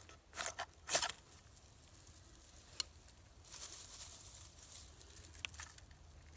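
Fire steel (ferro rod) struck with a knife spine to throw sparks onto dryer lint tinder: quick scraping strokes about a second in, a sharp click near the three-second mark, then a softer hiss through the second half.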